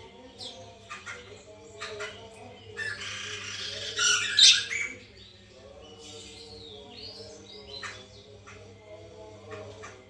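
Poksay mantel laughingthrush calling in short sharp chirps and harsh squawks, loudest in a rough, noisy burst of calls about three to five seconds in, over a steady low hum.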